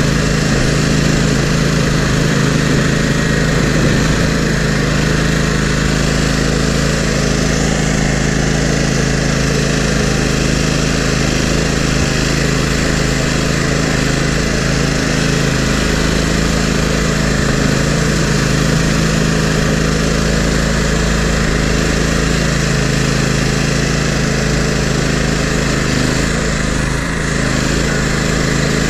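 Engine of a Toro GrandStand Multi Force stand-on machine running steadily while it plows snow.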